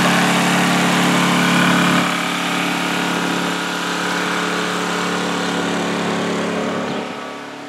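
Honda EU2000i inverter generator's small single-cylinder four-stroke engine running at a steady hum. It grows fainter about two seconds in and again near the end.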